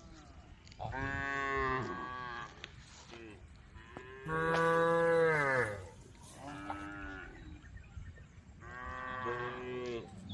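Cattle mooing repeatedly: four drawn-out calls, the second the loudest and falling in pitch at its end, the third short.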